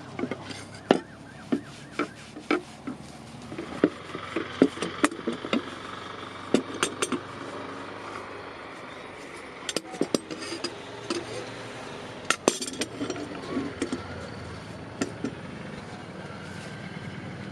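Irregular light metal-on-metal clinks and taps, some ringing briefly, over a steady low background hum; the sound of small steel work on hand-forged scissors.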